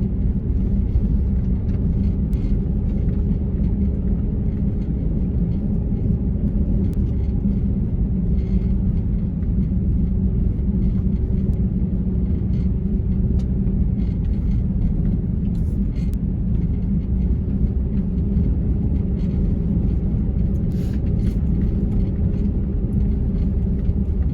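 Steady low rumble of a four-wheel-drive vehicle driving on a wet road, its engine and tyres heard from inside the cab, with a few faint scattered clicks.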